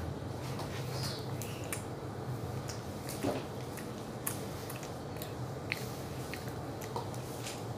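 Chewing and biting food, with scattered small clicks and crackles, over a steady low hum.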